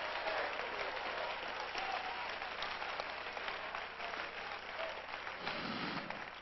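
A congregation applauding, with a few voices calling out; the applause fades toward the end.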